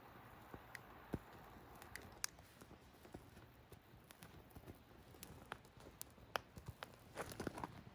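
Wood campfire crackling: scattered sharp pops and snaps from the burning wood over a faint hiss, with a quick run of snaps near the end.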